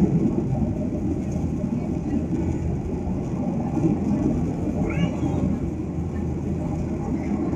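Steady low rumble of jet engines and rushing air heard inside the cabin of a Boeing 737 airliner in flight.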